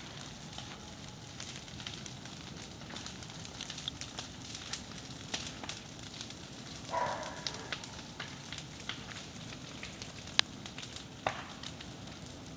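Large bonfire of dry wood burning, a steady hiss with frequent sharp crackles and pops and a couple of louder pops near the end.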